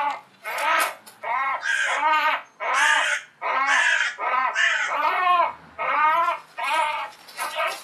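Hooded crow giving harsh distress caws, about a dozen in quick succession, while a hawk grips it in its talons.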